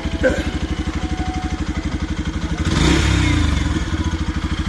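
Yamaha FZ-X motorcycle's single-cylinder engine idling with a steady rapid beat, with a short clack near the start. Almost three seconds in, it is revved once briefly and then drops back to idle.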